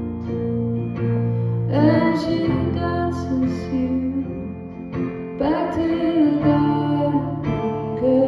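Live band music: a woman singing two phrases over guitar and electric bass, with sustained low bass notes underneath.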